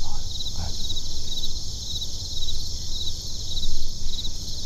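Insects chirping steadily in an even, pulsing rhythm of about two to three chirps a second, over a steady low rumble.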